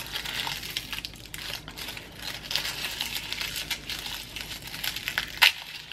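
Dry, papery garlic skins crinkling and crackling as a head of garlic is broken apart and peeled by hand, with one sharp click near the end.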